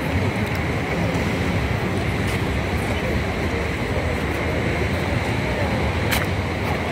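Steady outdoor rumble of wind buffeting a handheld phone microphone, mixed with street traffic noise, with one sharp click about six seconds in.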